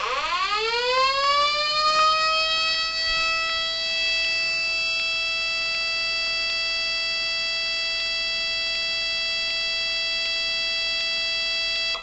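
Homemade electronic mini tornado siren, the Megablaster Jr., sounding its Alert signal through four speaker horns with the head not rotating. The tone winds up quickly over the first two or three seconds like a rotating siren spinning up, holds one steady pitch with strong overtones, then cuts off suddenly near the end.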